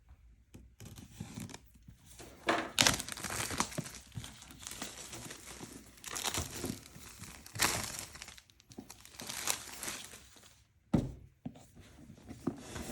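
Cardboard and plastic packaging being torn and crinkled in bursts as a projector's gift box is unwrapped and opened.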